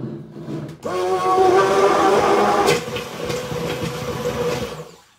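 Handheld electric stick blender running in a glass bowl, puréeing a strawberry mixture. Its motor whine jumps up in pitch about a second in as it comes up to speed, then cuts off just before the end.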